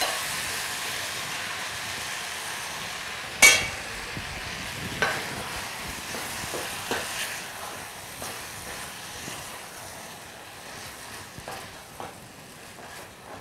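Beef masala sizzling in a stainless steel pot while it is stirred with a wooden spatula, the sizzle slowly dying down. A single ringing clank of metal on the pot about three and a half seconds in is the loudest sound, followed by a few lighter knocks of the stirring.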